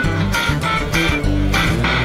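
Background music led by guitar over a bass line with a steady beat.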